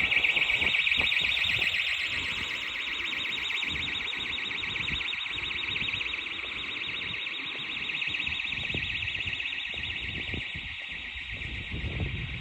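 Fire alarm sounding continuously: a high-pitched, rapidly pulsing tone, a little fainter after about two seconds, over low rumble and scattered knocks.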